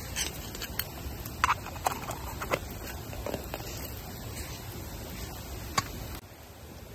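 Wood campfire crackling: a handful of sharp, irregular pops and clicks over a steady low rush. The background drops abruptly near the end.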